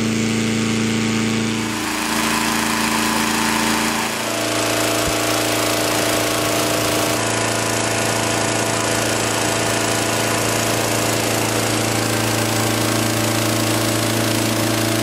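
Small petrol engine of a hot air balloon inflator fan running steadily at high speed, with the rush of air from the fan blowing the envelope full.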